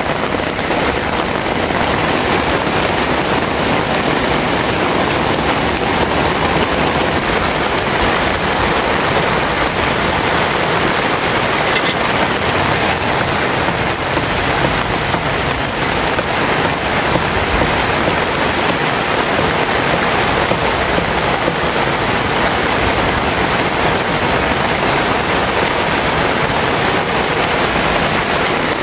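Heavy rain pouring down, a loud steady hiss that does not let up.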